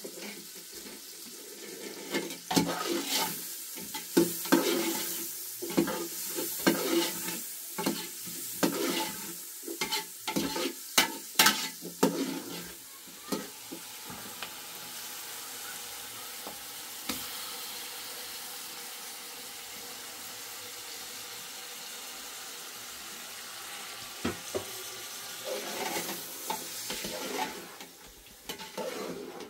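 Cooking in a pan: a utensil clattering and scraping as food is stirred through the first half, then a steady frying sizzle, with a few more knocks near the end.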